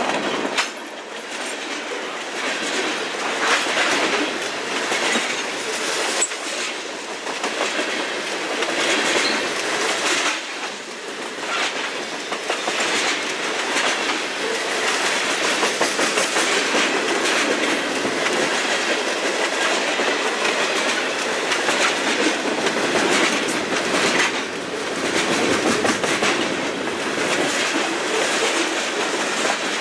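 Freight cars of a Norfolk Southern mixed freight train rolling past close by: a steady rumble and rattle of steel wheels on rail, with a continuous run of clicks as the wheels cross rail joints.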